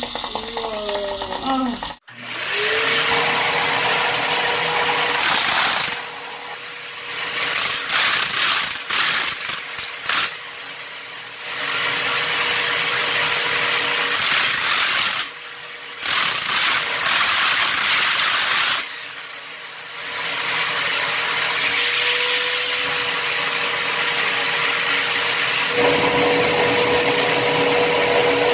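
Electric hammer drill chiseling out the concrete bathroom floor under a washbasin in repeated bursts with short pauses, breaking through to reach the leaking water pipe. Near the end a wet-dry vacuum starts and runs steadily.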